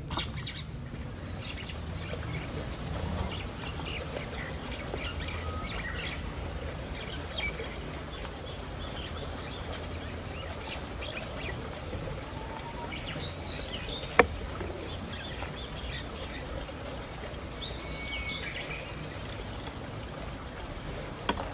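Small birds chirping and calling on and off over a steady low outdoor rumble, with a few louder swooping calls around two-thirds of the way through. A single sharp click stands out about 14 seconds in.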